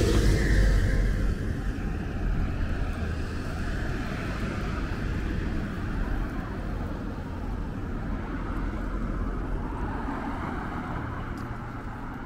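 Road traffic on a busy town street: a vehicle passing close fades away over the first couple of seconds, then a steady low rumble of traffic.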